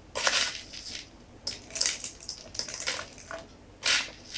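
Small coloured aquarium stones clinking and rattling in short, irregular bursts as they are scooped from a glass bowl and dropped into a small plastic bottle. The loudest rattle comes near the end.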